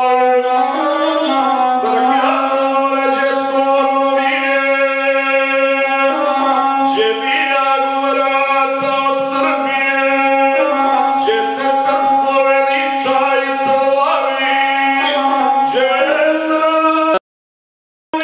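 A single-string gusle bowed to accompany a man singing an epic song. The sound cuts out completely for under a second near the end.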